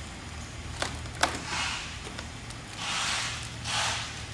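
Wooden dowels clicking twice against a wooden table leg frame about a second in, then a few short scraping rubs as they are pushed into the frame's drilled holes.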